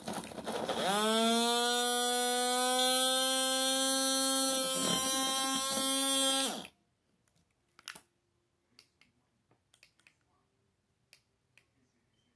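Battery-powered portable USB mini blender's motor whining as it spins up, rising in pitch over about a second, running steadily for about six seconds, then cutting off suddenly. The jar holds only mango chunks with no liquid, so the fruit does not blend, which the girls put down to needing water and juice in it.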